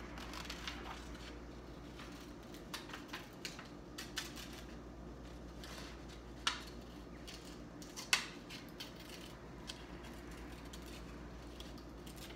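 Scissors cutting paper in short, irregular snips, with two sharper snips about six and eight seconds in.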